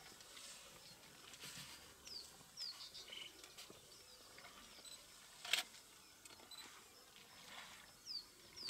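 Faint outdoor ambience with birds calling in short, falling chirps now and then, and a single sharp snap about five and a half seconds in.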